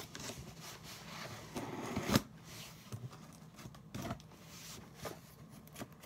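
A cardboard box being cut open: a scraping cut through the packing tape for about two seconds, ending in a sharp snap, then a few scattered knocks and rustles as the flaps are handled.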